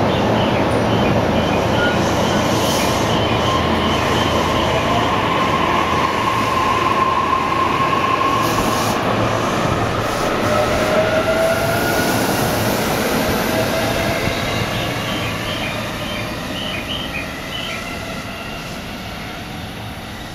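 JR East E531-series electric train pulling out and accelerating: the inverter-driven traction motors whine in rising tones over the rumble of wheels on rail. The sound fades over the last few seconds as the train draws away.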